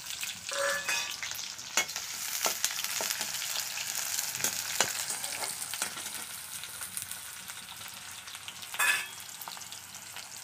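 Chopped onion sizzling in hot oil in a steel kadhai, with sharp clicks and scrapes as a metal spatula stirs it.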